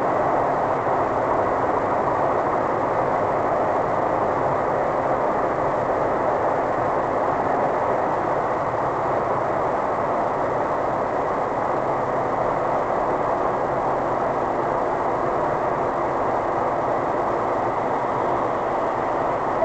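Steady tyre and road noise with a low engine hum, heard from inside a car's cabin cruising at motorway speed.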